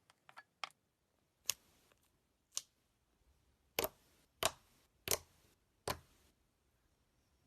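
Slime being handled, giving a series of sharp snaps and pops: a few quick ones at first, then single louder ones about once a second, several trailing off with a short hiss.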